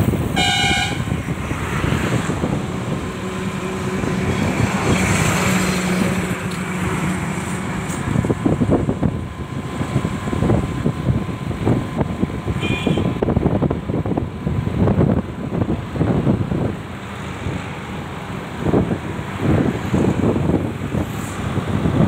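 Steady rumble of a moving road vehicle with wind buffeting the microphone, and a short horn toot about half a second in.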